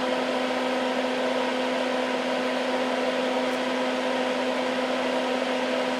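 Steady whir of a Hakko smoke absorber, a small soldering fume-extractor fan, running continuously with a low hum.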